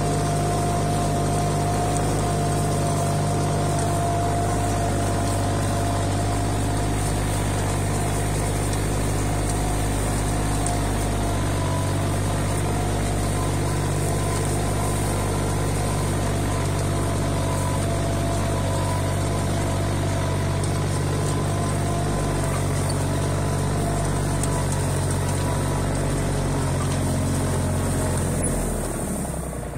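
Yanmar F175 compact tractor's diesel engine running steadily under load while pulling a mounted plough through the soil. Near the end the engine slows and quietens.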